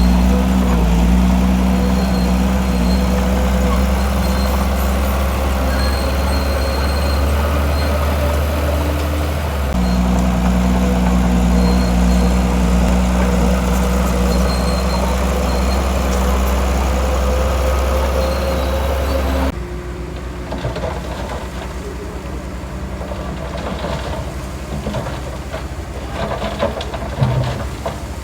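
Heavy diesel earthmoving machinery running steadily under load. About two-thirds of the way through it cuts abruptly to a quieter engine sound with rattling and knocking.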